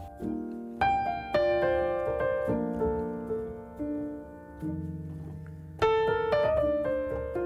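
Background piano music: single notes and chords struck and left to fade, with a louder chord about a second in and another about six seconds in.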